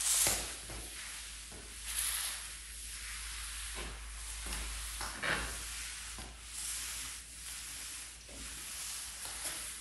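Wet cotton string mop swished back and forth across a tiled floor, a soft wet rubbing with each stroke, the strokes rising and falling every second or two.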